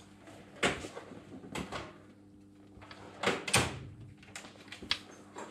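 A few sharp clicks and knocks of parts and tools being handled in a car's engine bay, loudest about half a second in and again just past three seconds, over a steady low hum.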